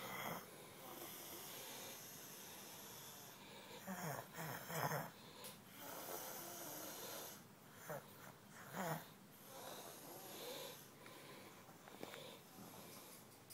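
Snoring in sleep, loud as thunder: a rasping snore every few seconds, some coming as a double snore.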